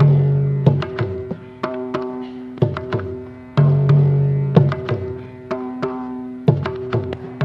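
Mridangam playing a fast Carnatic rhythmic passage: crisp, pitched ringing strokes on the right head, with deep, resonant bass strokes recurring about every three seconds.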